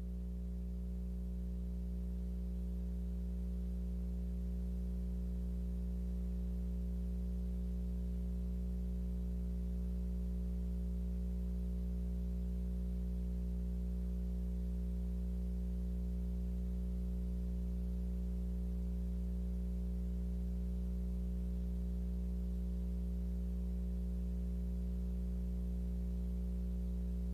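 Steady low electrical hum with a ladder of evenly spaced overtones over faint hiss, rising slightly over the first couple of seconds and then holding level: mains hum on the broadcast audio feed.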